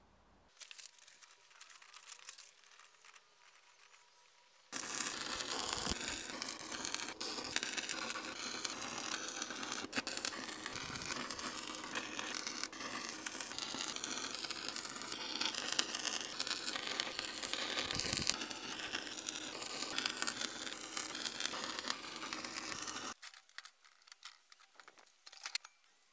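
Stick (arc) welder crackling steadily while welding steel inside a truck wheel. It starts about five seconds in after a few faint crackles and cuts off suddenly near the end.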